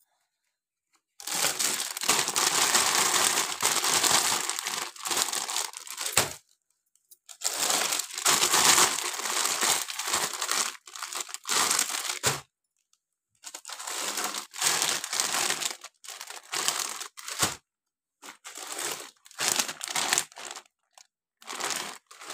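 Thin plastic bags packed with latex balloons crinkling as they are handled and shaken, in three long stretches of a few seconds each, then shorter bursts near the end.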